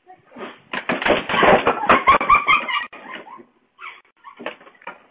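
A wooden garden chair giving way under a man's weight, with a run of cracks and clattering knocks as it collapses onto the patio paving, mixed with voices crying out.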